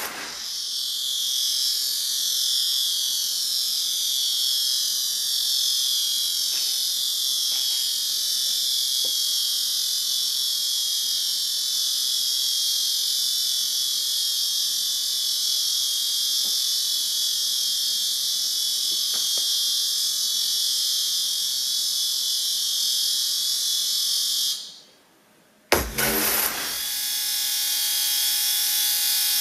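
Shrill, dense electronic drone from a contemporary dance score, with a cluster of steady tones beneath it. It fades out about 25 seconds in, falls to near silence for about a second, then cuts back in with a sharp click.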